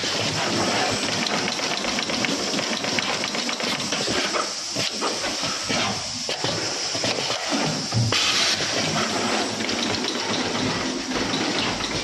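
Automatic cable crimping and housing-inserting machine running: a dense, steady clatter of mechanism clicks and knocks over a constant hiss, with a louder burst of hiss about eight seconds in.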